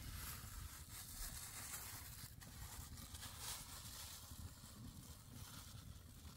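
Wind buffeting the microphone in an uneven low rumble, with a soft rustling hiss over it.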